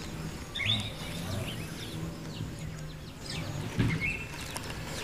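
Bird calls: a few short high chirps that sweep up in pitch and level off, over a low steady hum, with one sharp click near four seconds in.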